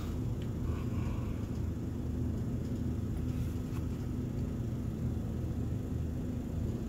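Steady low background rumble with a constant low hum running under it. A few faint soft sounds come about a second in.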